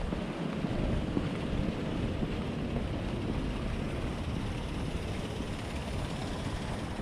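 Wind buffeting the microphone, a steady low rumble, over a steady hiss of city background noise.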